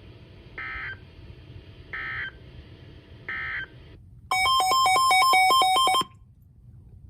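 EAS end-of-message signal: three short buzzy data bursts about a second and a half apart, closing a broadcast warning. Then a rapid run of electronic beeps switching between two main pitches for nearly two seconds, louder than the bursts, over a faint steady hiss.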